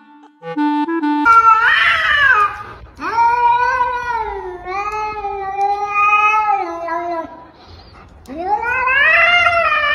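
A cat yowling in three long, wavering calls that rise and fall in pitch; the middle one lasts about four seconds. A snatch of music plays during the first second.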